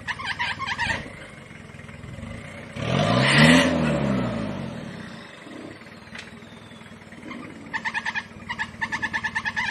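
Toyota Land Cruiser's engine revving once under load on a steep rocky climb, the pitch rising and then falling away. Near the end a rapid, even run of high chirps begins.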